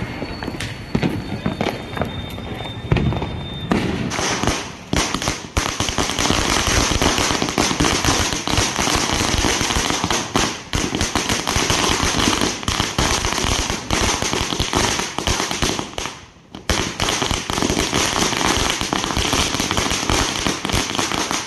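Firecrackers going off on a street. For the first few seconds there are scattered bangs and a thin high whistle. Then comes a long, dense run of sharp bangs in rapid succession, like a string of crackers, with a short lull about sixteen seconds in.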